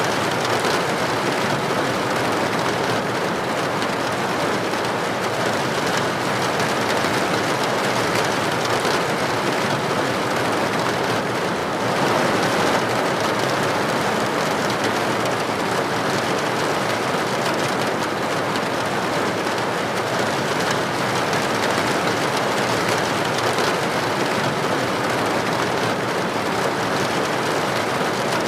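Steady, even rain pattering on a roof or window, a dense hiss of drops without pause.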